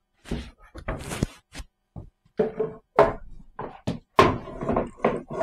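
Irregular knocks and thunks of wooden drawer parts being handled and set down, about a dozen short hits spread unevenly.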